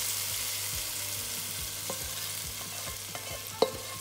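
Hot tempering oil (tadka) with fried onions, cumin and mustard seeds sizzling as it is poured into a pot of yogurt curry (kadhi), the hiss slowly fading. A spatula scrapes the frying pan with light ticks, and there is one sharp knock about three and a half seconds in.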